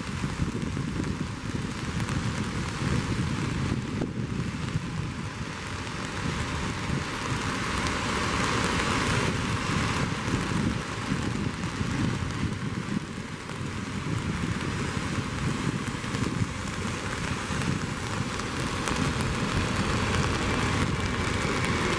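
Steady rain-and-wind noise over the low rumble of a Boeing 767-300ER's jet engines as it lands, with a faint high engine whine, falling slightly, near the end.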